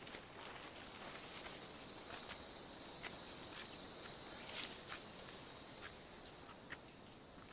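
Footsteps crunching on jungle leaf litter with leaves brushing past, a scatter of small clicks and snaps. Over it, a steady high-pitched insect drone comes in about a second in and fades near the end.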